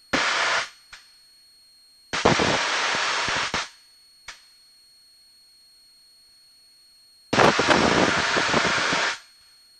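Three bursts of rushing static-like noise on an aircraft's headset intercom and radio audio feed, each cutting in abruptly and fading out: the first about half a second long, the next two about a second and a half and nearly two seconds. Between them the feed is quiet apart from two faint clicks.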